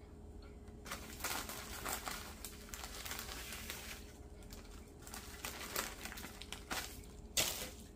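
Clear plastic zipper bag crinkling as crushed Butterfinger candy topping is shaken out of it. The rustling starts about a second in, eases off for a moment midway, then comes back.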